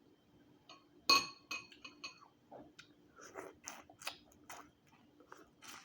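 Eating Dungeness crab: a sharp, ringing clink of something hard on a dish about a second in, then a run of small cracks, clicks and chewing sounds.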